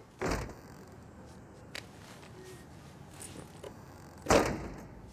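A glass-paned wooden door: a sharp knock as it is opened just after the start, a light click, then a louder thud as it is shut a little over four seconds in, with a short ring after it.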